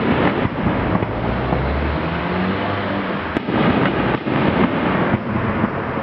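Fireworks display heard from the crowd: a dense run of shell bursts and crackling with echoing booms, and no single blast standing out above the rest.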